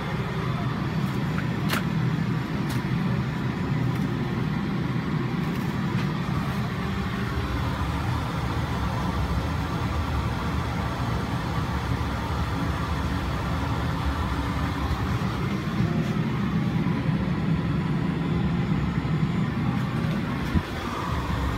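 Steady rushing air noise in an airliner lavatory, from the ceiling fresh-air vent blowing into the room over the aircraft cabin's low rumble, with a few faint clicks in the first seconds.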